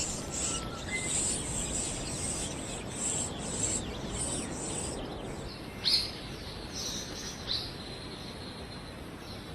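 Subtropical forest ambience: a high insect buzz that comes in pulses and fades after about four seconds, over a steady hiss, with two short bird chirps about six and seven and a half seconds in.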